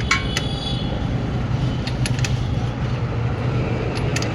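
A steady low mechanical drone with several sharp metallic clinks on top: one just after the start rings briefly, two come about two seconds in, and another near the end.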